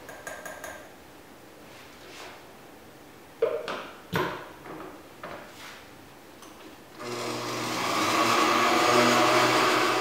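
Countertop blender: a few light taps and scrapes as baking powder goes into the batter in the glass jar, a couple of knocks, then about three seconds before the end the motor starts and runs steadily, blending the baking powder into the pie batter.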